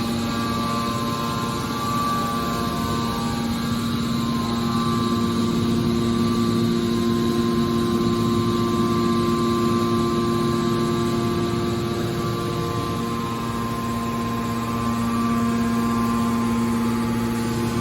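Scrap car baler's hydraulic power unit running, a steady machine hum and whine that holds an even pitch.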